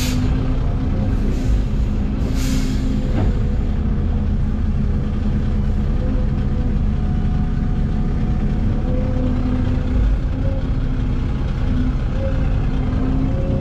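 Dump truck's diesel engine running steadily, a constant low drone that holds one pitch.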